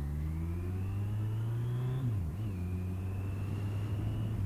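Kawasaki GTR1400 motorcycle's inline-four engine accelerating, its pitch rising for about two seconds, dipping briefly as it shifts up a gear, then running steadily, with a thin whine above the engine.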